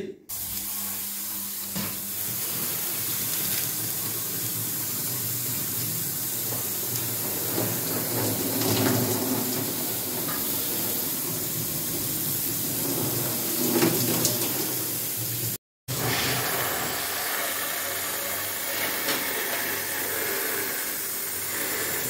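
Water sprayed from a garden-hose nozzle onto the finned coil of a split air conditioner's indoor unit: a steady hiss with splashing. It cuts out for a moment about two-thirds of the way through.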